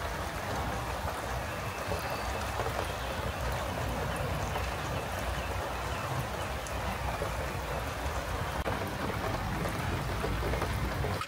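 Steady rain falling, with scattered separate drops ticking.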